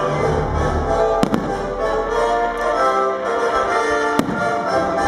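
Fireworks shells bursting in the air, two sharp bangs about three seconds apart, over loud music with sustained notes.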